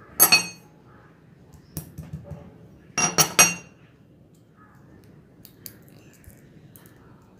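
Hard castor seeds and bits of shell clicking on a stone countertop as they are cracked open and handled. There is a sharp double click about a quarter second in, a few lighter clicks near two seconds, and a quick run of three louder clicks about three seconds in.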